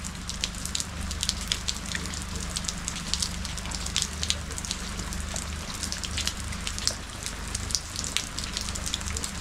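Steady rain falling, with many separate drops ticking close by, over a low steady hum.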